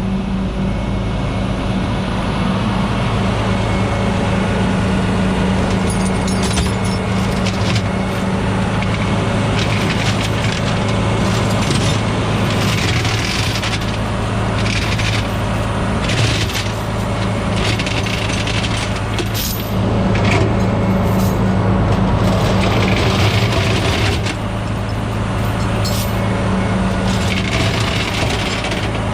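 Diesel truck engine idling steadily, with metal chain clinks and rattles on top as tie-down chains are handled.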